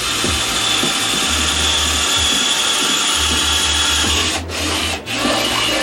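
Power drill boring holes through the bottom of a bucket, the bit grinding steadily under pressure, with two short pauses near the end.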